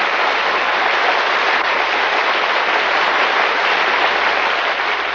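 Audience applauding steadily at the close of an act, heard on an old radio broadcast recording with a dulled top end.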